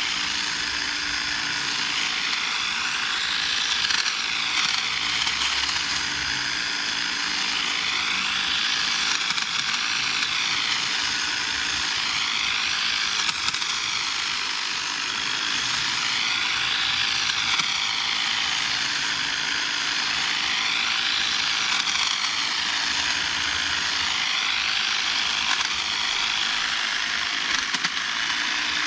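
Battery-powered EGO pole hedge trimmer running while cutting bushes: a steady motor whine and blade chatter whose pitch sags and recovers in slow arcs every few seconds.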